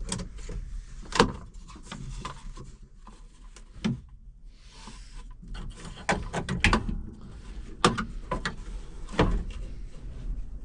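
Scattered sharp knocks and clicks of hands and tools handling parts around the tractor cab, the loudest about a second in and a cluster between six and seven seconds, over a steady low rumble.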